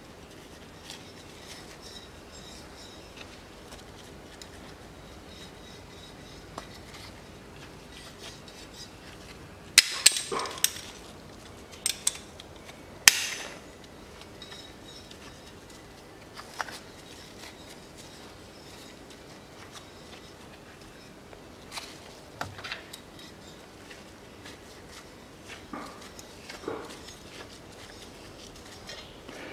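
Steel locking pliers clinking and clicking against a stud as an old intake-manifold stud is turned out of the cylinder head. The clicks are sharp and scattered, with the loudest a short cluster about ten seconds in and another about three seconds later.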